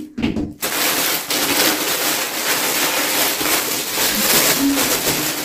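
Clear plastic packaging bag crinkling steadily as it is pulled open to take out a hoodie, starting about half a second in.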